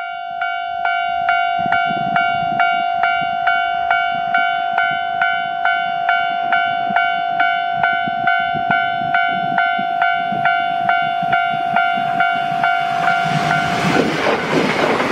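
Railway level-crossing warning bell ringing steadily, a little over two strikes a second, as a JR Shikoku 7000 series electric train approaches. Near the end the train passes close by and its rushing noise rises over the bell.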